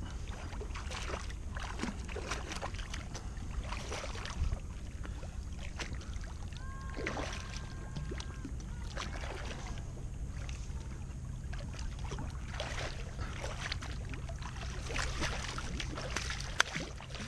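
Irregular splashing of a hooked bullhuss thrashing at the surface beside the kayak, over a steady low rumble, with one sharp knock near the end.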